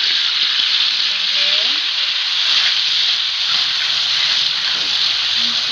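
Food frying in a pan of hot cooking oil: a steady, loud sizzle.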